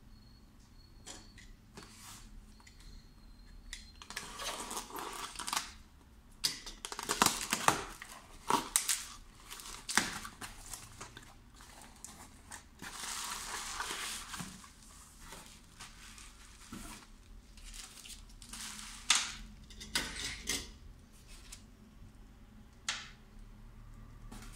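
Cardboard parcel being opened by hand: packing tape tearing, cardboard flaps pulled and scraping, and plastic packaging rustling. It comes in a string of short rustles and sharp crackles, the loudest a little over a third of the way in.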